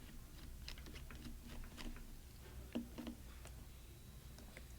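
Faint, irregular light clicks and taps from small laptop parts, screws and a small screwdriver being handled during reassembly.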